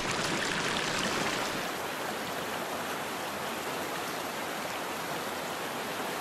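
A small stream running over rocks in a riffle: a steady rush of water. About a second and a half in it turns slightly quieter and thinner.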